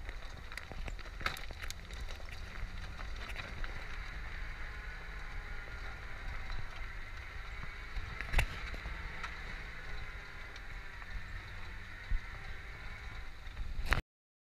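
A vehicle driving slowly over a gravel track: a steady low engine rumble with scattered knocks and rattles, one sharper knock about eight seconds in. The sound cuts off abruptly near the end.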